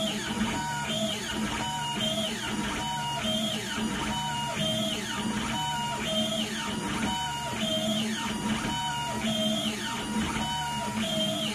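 Stepper motors of a DIY CNC pen plotter whining as the pen moves, the pitch rising, holding and falling again with each stroke of the drawing.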